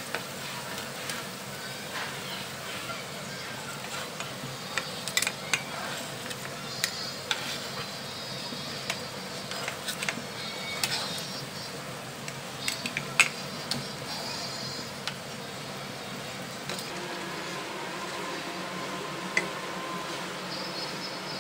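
Spinach and lentil pakoras sizzling as they shallow-fry in oil in a nonstick pan, with a plastic spatula scraping and tapping against the pan as they are turned and lifted out. The taps come in scattered clusters, mostly through the middle.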